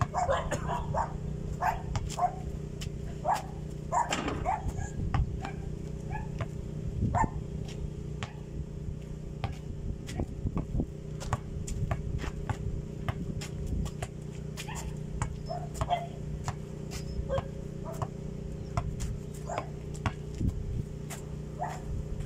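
Basketball bouncing and being handled on a dirt court, irregular short thuds and taps, over a steady low hum. A few short sharp calls break in, the clearest near the start and about four seconds in.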